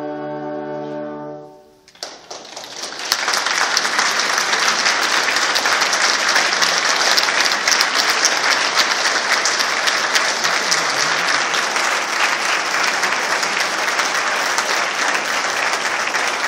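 A wind ensemble holds its final chord, which stops about a second and a half in. After a brief gap the audience applauds, the clapping building over the next second and then continuing steadily.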